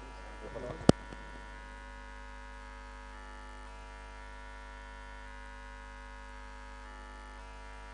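Steady electrical mains hum and buzz, with one sharp click about a second in.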